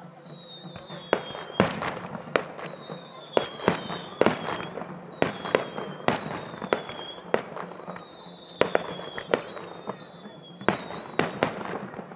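Fireworks display: whistling shells, each whistle falling in pitch over about a second, and about a dozen and a half sharp bangs of shells bursting at uneven intervals.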